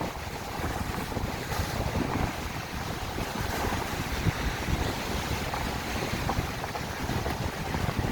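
Strong gusting wind buffeting the microphone with a heavy low rumble, over waves breaking on the shore.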